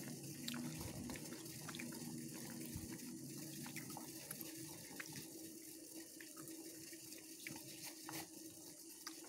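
Pot of bilimbi (belimbing wuluh) in water boiling on a gas stove: a faint steady hiss with small scattered bubbling pops.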